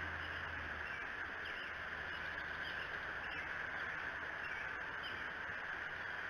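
Steady outdoor hiss at an eagle nest, with a few faint, short high bird calls scattered through it. A low hum fades out about a second in.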